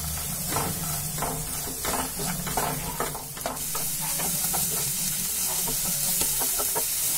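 Chopped vegetables (beans, carrot, green peas, tomato, onion) sizzling in hot oil in a nonstick kadai while a wooden spatula stirs them. Steady frying sizzle, with the spatula's scraping strokes about twice a second in the first half.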